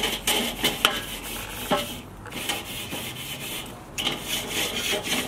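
Grill brush scrubbing back and forth over the hot steel cooking grate of a charcoal kettle grill, a rasping scrape in repeated strokes with a few sharp metal clicks. It eases off briefly about two seconds in and again just before four seconds. The grate is being scraped clean while hot so old food residue falls off before cooking.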